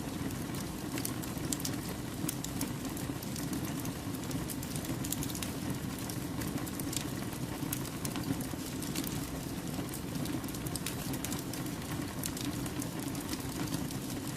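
Wood campfire burning: a steady low rush of flames with frequent sharp crackles and pops from the burning logs.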